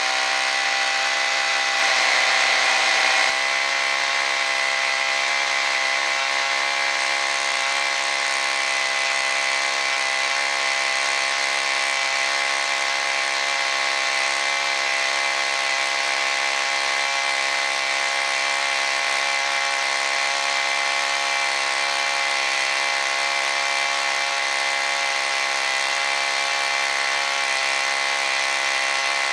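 Chainsaw winch driven by a 111cc (6.5 hp) chainsaw engine, running steadily at high speed under load as it winds in and drags a log. The engine is briefly louder about two seconds in.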